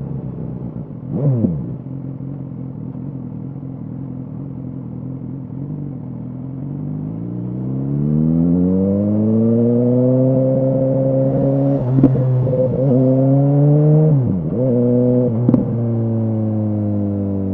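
BMW S1000R inline-four engine through an Arrow exhaust, running at low revs and then pulling up in pitch as the bike accelerates. The revs hold high, dip sharply twice and then fall away as it eases off. A short falling sweep sounds about a second in.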